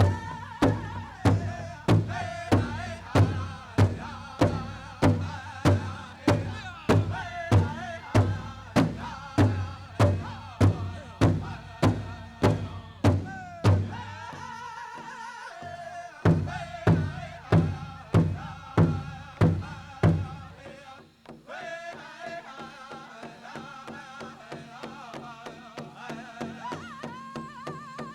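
Pow wow drum group singing a prairie chicken dance song around a big drum, struck in steady, even beats about twice a second. Around 21 s the hard drumbeats fall away and the song goes on much more quietly.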